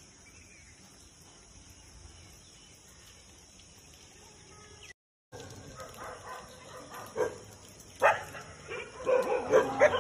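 Faint steady outdoor background noise. After a short cut comes a run of short, sharp animal calls in bursts, growing louder from about eight seconds in.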